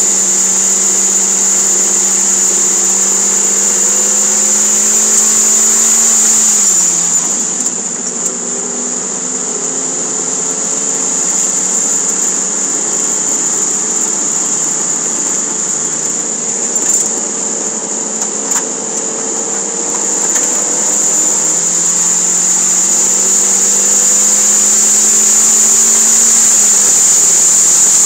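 Toyota MR2 Spyder's four-cylinder engine heard from inside the cabin on track, with a steady high whine over it. The engine pulls, then drops in pitch and quietens as the driver lifts off to brake about seven seconds in. It runs lower through a corner, builds again on the exit, and drops in pitch at an upshift near the end.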